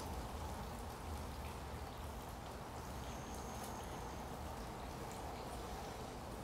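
Faint, steady background hiss with no distinct events, and a brief thin high tone about three seconds in.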